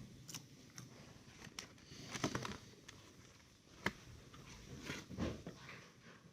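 Faint, scattered clicks and rustles, a few separate soft knocks and handling noises, the sharpest about two and four seconds in.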